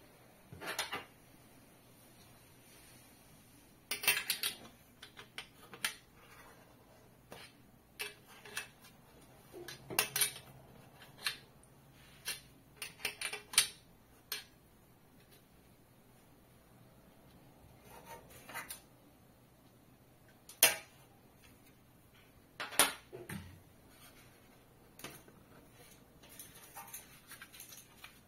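Irregular clinks, clicks and knocks of small metal screws and nuts and the light fixture's parts being picked up and handled during assembly, in scattered clusters.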